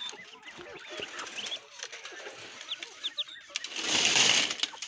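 Ducklings peeping in short, high chirps throughout. About four seconds in comes a loud rustling scrape lasting about a second.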